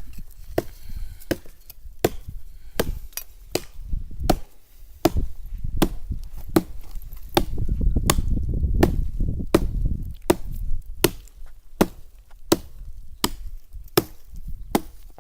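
Wood being chopped by hand with a blade: a steady run of sharp blows, about one every 0.7 seconds, cutting a log for the campfire.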